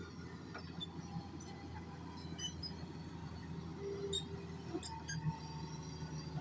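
Heavy diesel machinery running steadily at a low hum, with scattered faint high chirps and clicks over it.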